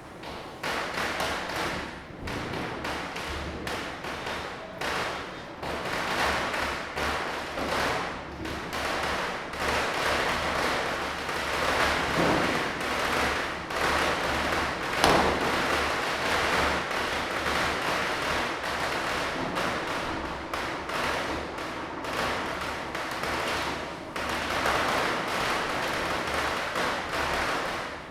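Diwali firecrackers bursting in close succession, a dense run of pops and thuds over a festive background hubbub, with one louder bang about halfway through.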